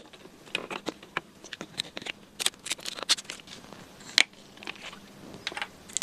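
Screw cap of a small plastic Nestlé Pure Life water bottle being twisted open: a run of small, irregular plastic clicks and crackles as the cap turns, with one sharper click about four seconds in.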